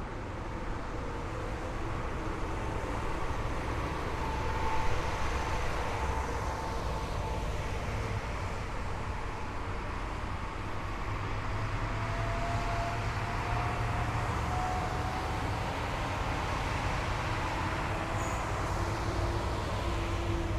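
A column of heavy military vehicles driving past: a steady low engine rumble and road noise, with faint whines that drift up in pitch and a brief swell in loudness about five seconds in.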